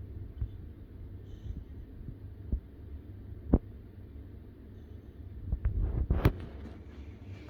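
Yellow Labrador puppy snoring in its sleep: a low, steady rumble broken by sharp clicks, the loudest about three and a half seconds in and again just after six seconds.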